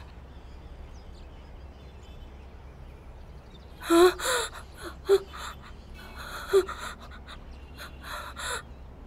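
A baby fussing: a string of short, high-pitched cries and gasps starting about four seconds in, the loudest first.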